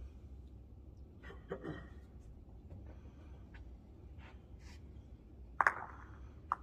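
Short mat bowls colliding: a delivered bowl strikes a resting bowl in the head with one sharp clack, ringing briefly, followed by a second, lighter click as the bowls scatter. Low steady hum of the hall underneath.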